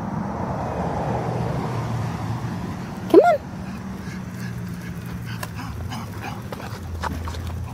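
A pug gives a single short yelp about three seconds in, its pitch rising and then falling, over a steady low hum.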